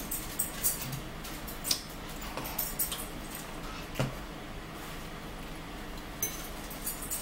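Metal cutlery clinking and scraping against dishes as two people eat salad: scattered light clicks and ticks, with one sharper knock about four seconds in.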